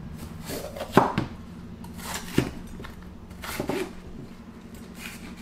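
Chef's knife cutting a red bell pepper on a plastic cutting board: a few separate knocks of the blade against the board, the sharpest about a second in, over a faint steady low hum.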